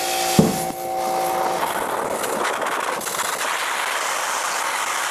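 Hart 2000 psi electric pressure washer running, its jet from a 2.5 orifice nozzle spraying into a plastic measuring bucket as a steady, even hiss. A click comes about half a second in, and a short steady hum runs under the first second and a half.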